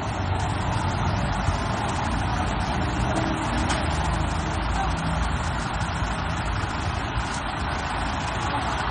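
Steady city street noise: passing traffic running on as an even hum and hiss.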